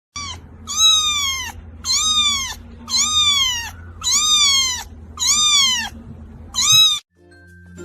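A cat meowing over and over, about once a second, seven meows in all, each one high and falling in pitch; the first and last are short. A low steady hum runs underneath.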